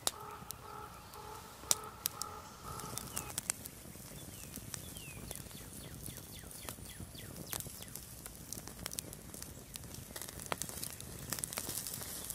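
Campfire coals crackling with scattered sharp pops under a wire grilling grate, with birds calling in the background.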